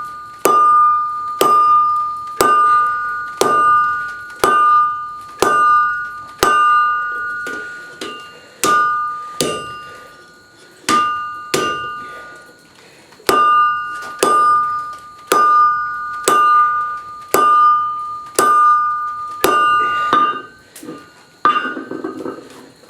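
Forging hammer striking steel on an anvil, about one blow a second, each blow ringing with a clear metallic tone. There is a short pause about halfway through and a duller knock near the end.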